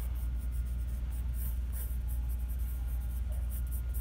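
Mechanical pencil scratching on sketchbook paper in short, irregular strokes, over a steady low hum.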